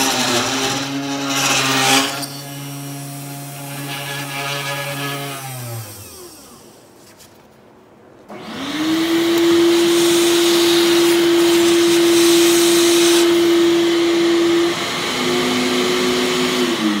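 Desktop CNC router spindle motor running with a steady hum that winds down about five seconds in. After a short lull it spins up again to a steady, higher whine, with a rough cutting noise, while the bit carves into the wood. Its tone shifts near the end and then winds down.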